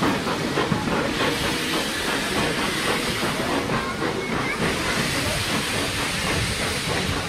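Replica of Stephenson's Rocket steam locomotive running along the track pulling a passenger carriage, with steady steam hissing and exhaust chuffing.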